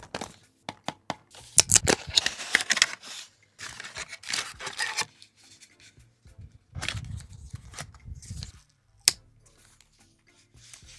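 Packaging being opened by hand: a few small clicks, then three spells of tearing and scraping of cardboard and plastic, and one sharp click about nine seconds in.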